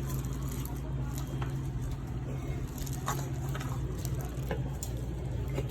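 Steady low hum of room background with a few scattered light clicks and taps, typical of spoons and forks on plates during a meal.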